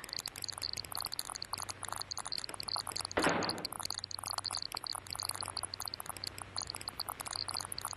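Surface crackle and steady hum of an early-1930s optical film soundtrack, with one short, loud burst of noise about three seconds in.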